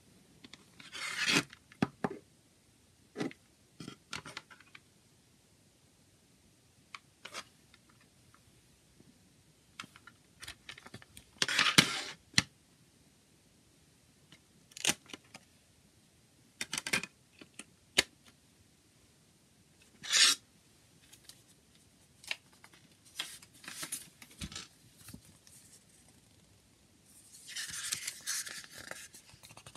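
Hands handling a CD in its plastic jewel case: scattered clicks and snaps of the case and short scrapes and rustles of the paper inserts, with a longer rustle of booklet pages flipped near the end.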